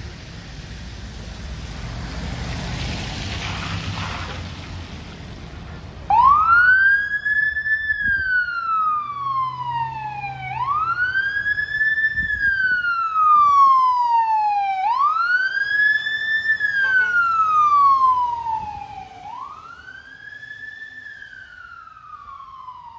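Fire engine's siren wailing in repeated cycles, each a quick rise in pitch and a longer fall, about every four seconds. It starts about six seconds in and grows fainter near the end. Before it there is only steady street traffic noise.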